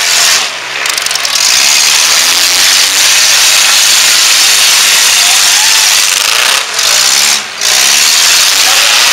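Several four-cylinder compact car engines revving hard at full throttle, so loud that the sound is distorted, with brief drops in loudness about half a second in and twice near the end.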